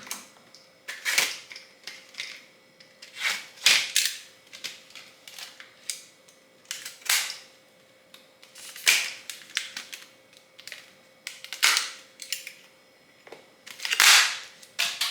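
Tool packaging being worked open by hand: sharp plastic snaps and crackles, a burst every second or two, the loudest near the end.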